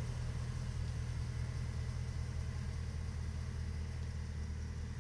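Mercedes CLS55 AMG's supercharged 5.4-litre V8 running at low, steady revs through an exhaust with the resonators and secondary cats removed, a deep drone that slowly fades as the car pulls away.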